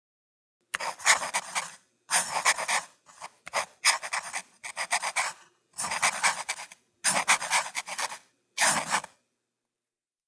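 A stock editing-app sound effect: about seven short bursts of rasping or breathy noise, each about a second long, separated by dead silence.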